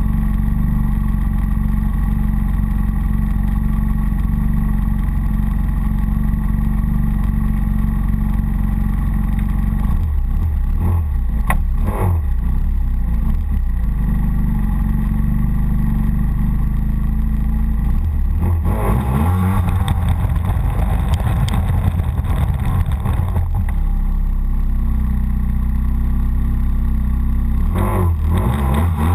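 Snowmobile engine idling, revved briefly about a third of the way in, then revved for several seconds past the middle as the sled moves off, and again near the end.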